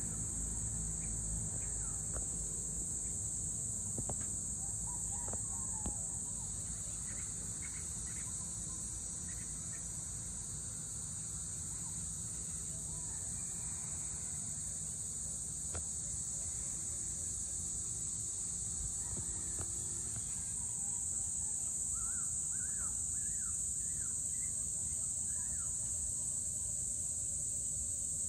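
Steady high-pitched chorus of crickets or other insects at dusk, with scattered short bird chirps over a low background rumble.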